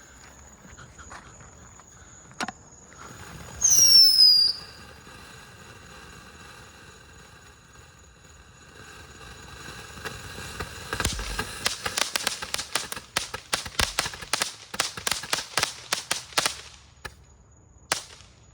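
Consumer fireworks fountain burning: a short whistle falling slightly in pitch about four seconds in, then a long dense run of crackling pops in the second half, trailing off near the end.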